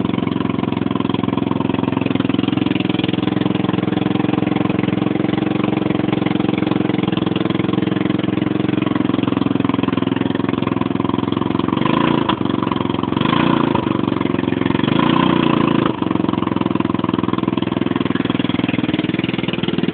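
150 cc scooter engine running steadily and loudly, the loud noise the owner is concerned about. The engine note shifts slightly between about twelve and fifteen seconds in, with two brief dips in level.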